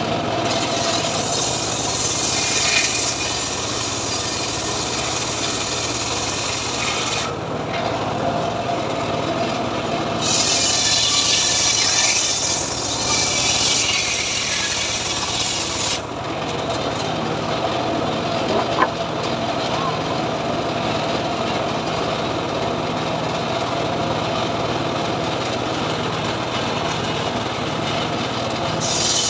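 Homemade engine-driven circular saw bench ripping a lamtoro (leucaena) log. The engine runs steadily throughout. The blade cuts through the wood in two long stretches, from about half a second in and again from about ten seconds in, and spins on with a steady hum between and after the cuts.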